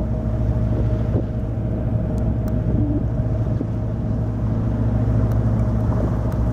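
Engines of a Riviera 3300 motor cruiser running steadily, a low even drone.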